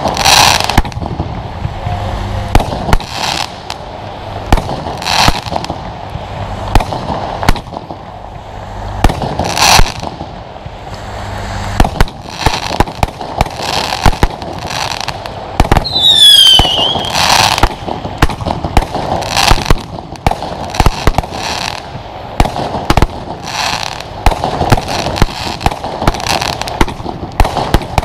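Pyro Tec Pro 14 compound firework battery firing a continuous run of launches and bursts, many sharp bangs in close succession. About sixteen seconds in, a whistling effect slides down in pitch.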